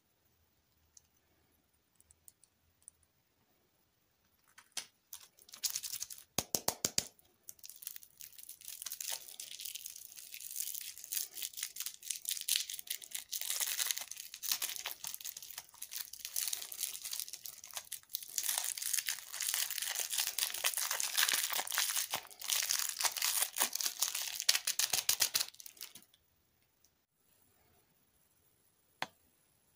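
Crinkling and tearing of a lollipop's plastic wrapper as it is unwrapped by hand: a few sharp clicks, then a dense run of crackles lasting about twenty seconds, stopping well before the end.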